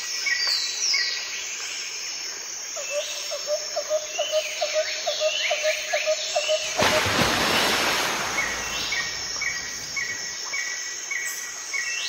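Birds chirping and calling in a forest soundscape: short rising and falling whistles, a string of evenly spaced high pips about twice a second, and a run of lower notes about three a second. A loud rush of noise cuts in about seven seconds in.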